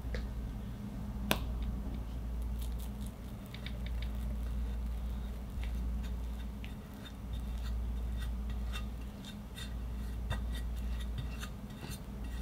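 Metal offset spatula spreading Swiss meringue buttercream over a sponge cake layer: soft, sticky clicks and ticks as the blade works the cream, with one sharper click about a second in, over a low steady hum.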